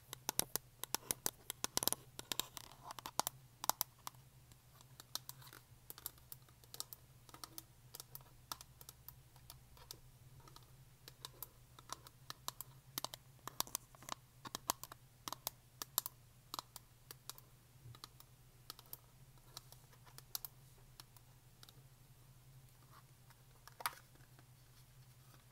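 Long fingernails tapping and scratching on a small black hard plastic case: a quick, irregular run of sharp clicks that thins out later, with one louder click near the end. A steady low hum sits underneath.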